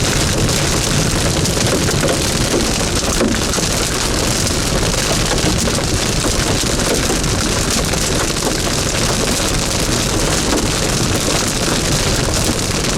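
Heavy storm rain pelting a vehicle's roof and windows, a dense, steady patter.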